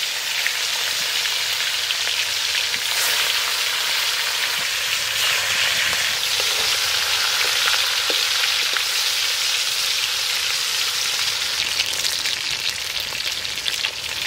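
Pieces of bhetki (barramundi) frying in hot oil in a pan: a steady sizzle with an occasional small pop.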